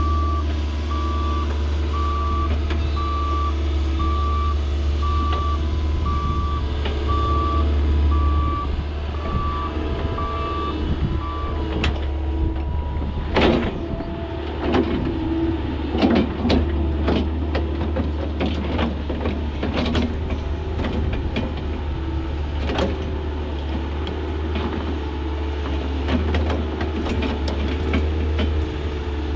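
Heavy diesel equipment running, with a backup alarm beeping at a steady pace that stops about twelve seconds in. After that come a series of sharp clanks and knocks of heavy earthmoving work.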